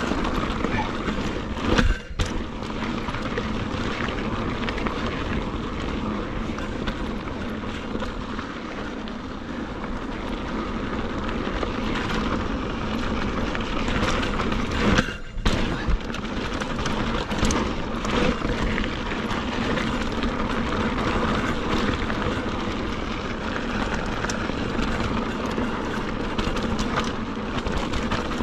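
Wind buffeting a GoPro action camera's microphone as a mountain bike rolls fast over loose dirt and rock, with tyre noise and sharp rattles and knocks from the bike over bumps.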